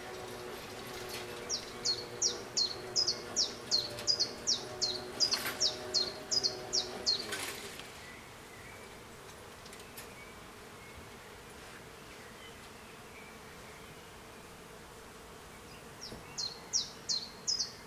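Level-crossing barrier drives humming steadily as the booms rise, the hum sliding down in pitch and stopping about seven and a half seconds in. Over it a bird repeats a short, sharp, descending chirp about two or three times a second, falls silent, and starts again near the end.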